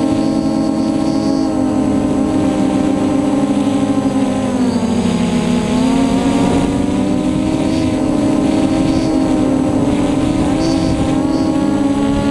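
Custom F330 quadcopter's motors and propellers whining steadily, heard from the onboard camera, with several close pitches beating together. The pitch sags about five seconds in as the throttle changes, then climbs back.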